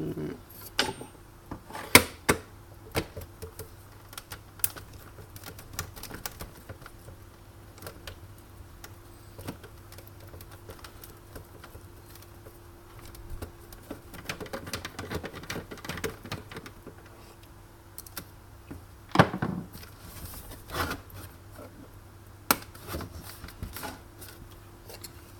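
Irregular clicks, taps and clatter of hard plastic parts being handled and pried apart as the espresso machine's plastic coverings are taken off, with a few louder knocks.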